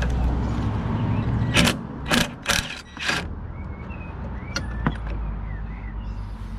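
Hand tools being handled on the workbench: four short, sharp clattering noises about a second and a half in, over a steady low hum, then a few faint squeaks.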